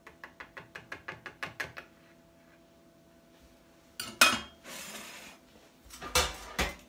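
Wire whisk stirring thick brownie batter, clicking quickly against the bowl about six times a second and then stopping. After a pause come a loud clank and a clatter of metal pans and utensils, and a second burst of clattering near the end.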